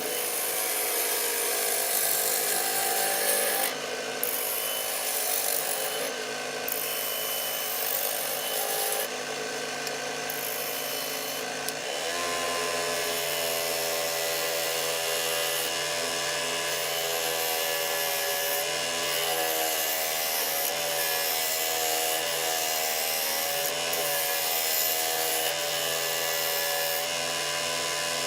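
Wood lathe running while a turning tool roughs a glued-up walnut blank down to round. A steady motor hum sits under continuous scraping and shaving noise from the cut, and the hum changes about twelve seconds in.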